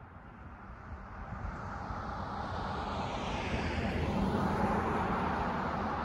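Rushing noise of an approaching vehicle, growing steadily louder.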